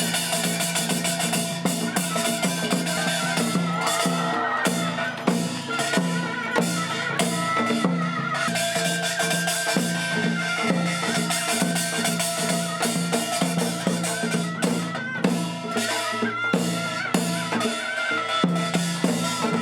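Korean traditional folk music: a wavering, reedy wind melody over a steady low drone, with quick drum and percussion strikes.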